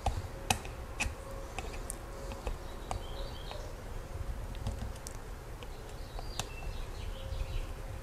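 Quiet, scattered clicks and ticks of a screwdriver turning the cord-grip retainer screws in a plastic power-cord plug, with the clearest clicks about half a second and one second in and again near the end, over a faint steady hum.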